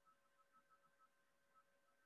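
Near silence: only a faint electronic hum with a few steady tones.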